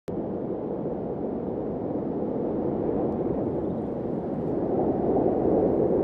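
Wind on the microphone: a steady low rushing noise that swells slightly near the end.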